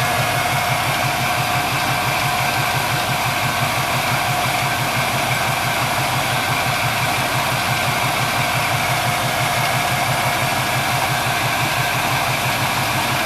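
A 1973 Pontiac Trans Am's 455 V8 idles steadily with its idle set a little high. It runs on freshly adjusted rocker arms and new rocker studs, and the owner finds that it now sounds good.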